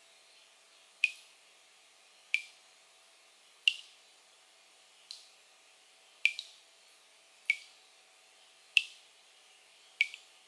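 Water dripping into a washbasin: eight single drops at a slow, even pace, about one every second and a quarter, each a short ringing drip that dies away quickly, over a faint steady hum.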